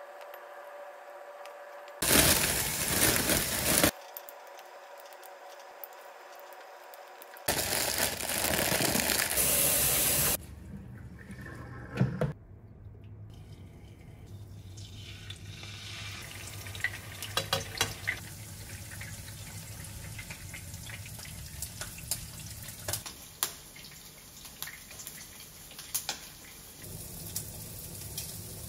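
Kitchen tap running in two bursts of about two and three seconds, water splashing into the sink. After them come scattered small clicks and knocks of kitchen work.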